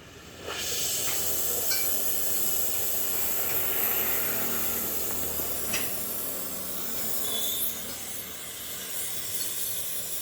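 Oxy-acetylene welding torch flame hissing steadily, starting about half a second in, with a few faint clicks.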